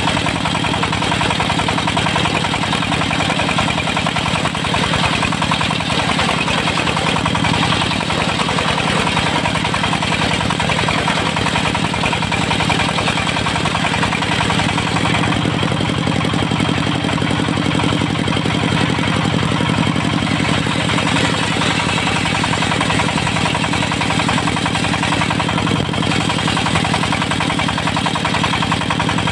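Diesel engine driving a portable circular sawmill, running steadily.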